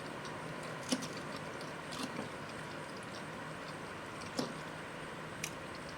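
Close-miked chewing of crunchy fried, Cheetos-crumb-coated green-lipped mussel: a few short, sharp crunches and mouth clicks scattered over a steady background hiss.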